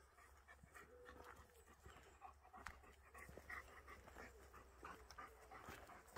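A German shepherd panting faintly, several short breaths a second.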